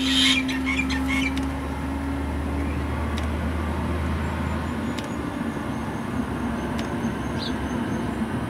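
2 kW diesel air heater starting up, heard at its exhaust silencer: a steady rush of the combustion fan and exhaust as the burner is about to light and the exhaust puffs startup smoke. A low hum underneath stops about halfway through.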